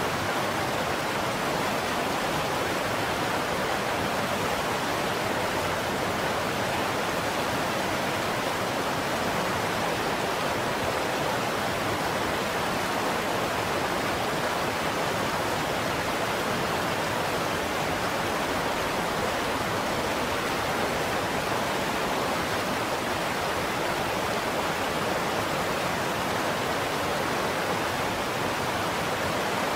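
Shallow rocky river running over stones and riffles: a steady, unbroken rush of water.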